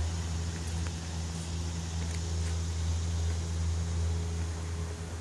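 Steady low mechanical hum, unchanging throughout, with a few faint scattered ticks.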